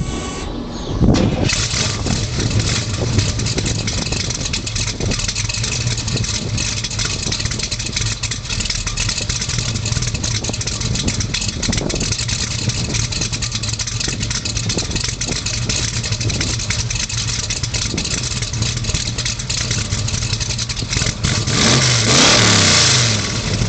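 Stroked small-block Chevy V8 of about 385 cubic inches, with a Comp 284 camshaft, idling rough and lumpy as the long-duration cam makes it do. About 22 s in the throttle is blipped once, the pitch rising and falling back to idle.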